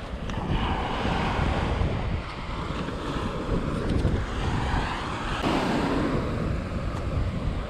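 Strong wind buffeting the microphone over the wash of surf on a beach, with the surf swelling up and fading a few times.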